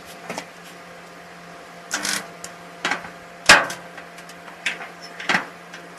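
Homemade spot welder built from a microwave-oven transformer, used as a dent puller on a damaged car fender. Several sharp cracks and clacks come at irregular intervals as it welds on and pulls, the loudest about three and a half seconds in, over a steady low hum.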